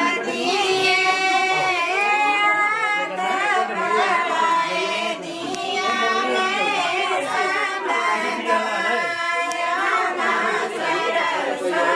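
A group of women singing a Pahari (Himachali) wedding folk song together, in long drawn-out, gliding notes.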